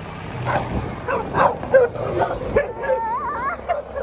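A dog giving several short yips, then a high, wavering whine about three seconds in.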